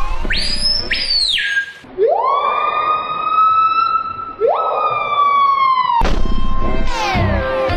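Siren-like calls, presented as a bird's: one short high whistle that rises and falls, then two long wails that sweep up and hold, the second starting just before the first ends. A music beat with heavy bass comes in near the end.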